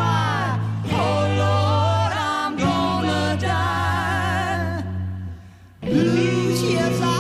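Music: a singer holds long, wavering notes over a steady low bass line. The sound dips briefly about five and a half seconds in, then the music comes back in full.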